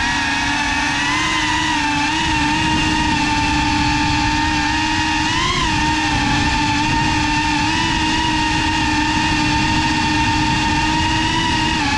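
Motors and propellers of a GEPRC CineLog35 FPV cinewhoop drone whining steadily in flight, recorded by the GoPro mounted on it. The pitch rises briefly about five and a half seconds in as the throttle goes up, with small wobbles elsewhere.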